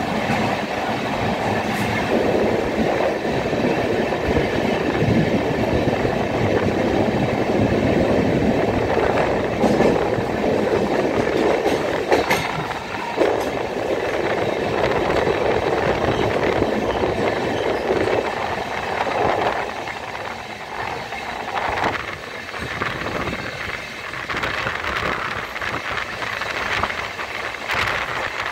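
Passenger train running at speed through a rock tunnel, with steady wheel-on-rail noise close up at the open door and occasional clicks of wheels over rail joints. The noise gets somewhat quieter about twenty seconds in as the train leaves the tunnel for an open rock cutting.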